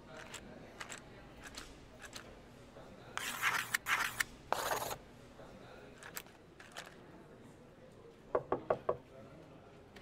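Chalk scratching across a surface in three quick strokes, then four quick knocks on a glass door near the end.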